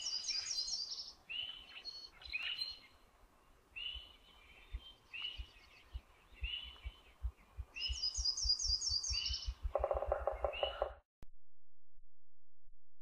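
Songbirds singing outdoors, with short high chirping phrases repeated over and over. Near the end there is a lower, rapid rattling call, and then the sound cuts off suddenly.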